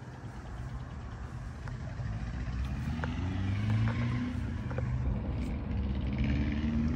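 Car engine running with a deep, low rumble that grows louder, its pitch rising twice as the engine speed climbs.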